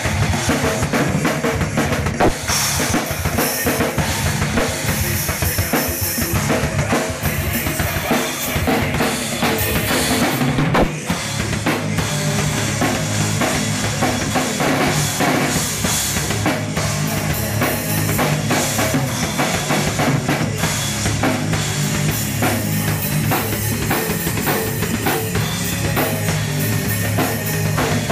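Drum kit played without a break: fast, dense bass drum and snare strokes with rimshots.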